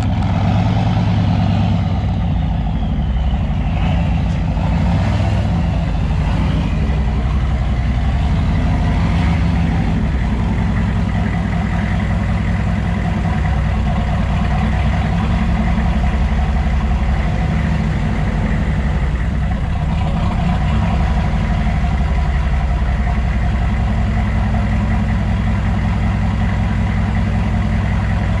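Chevy K2500's 6.5 turbo diesel V8 idling steadily through a 4-inch straight pipe, with a faint turbo whistle falling in pitch over the first few seconds as it winds down.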